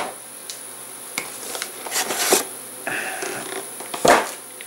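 Plastic game-box insert tray with bagged miniatures being handled and lifted out of a cardboard box: scattered clicks and plastic rustles, with a louder knock at the start and another about four seconds in.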